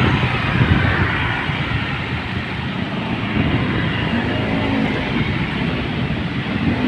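Steady vehicle and road noise, an engine running under a continuous rumbling hiss, with a passing engine's pitched hum rising into it about four seconds in.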